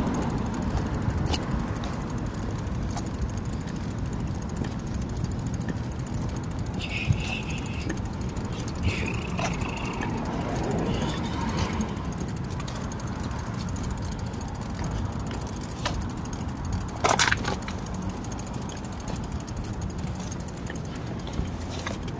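Bicycle rolling along a concrete sidewalk: a steady rumble of tyres with rattling and clicking from the bike. A few short high squeaks come about a third of the way in, and a sharp knock about three quarters of the way in.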